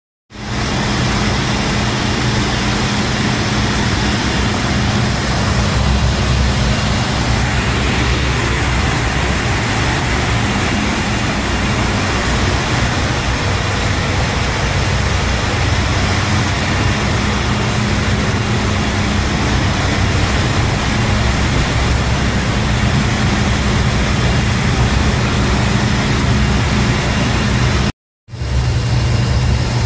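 A steady, loud industrial boiler running: a low hum with an even hiss over it. It cuts out briefly near the end.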